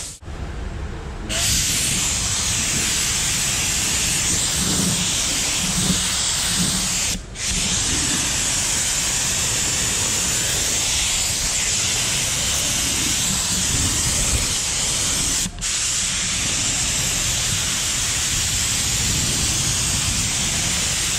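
Compressed-air spray gun hissing steadily as it sprays a grey coat onto a van's rocker panels. The trigger is pulled about a second in and let go briefly twice, about 7 and 15 seconds in.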